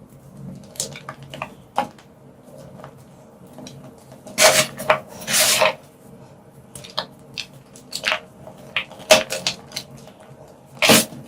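Blocks of dyed gym chalk being crushed, giving a series of sharp crunches and crumbling snaps at irregular intervals. The loudest and longest crunches come near the middle, with another loud snap just before the end.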